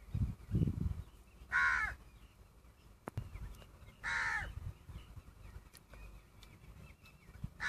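A crow cawing three times, each caw a short falling call, a few seconds apart. There are low thumps near the start.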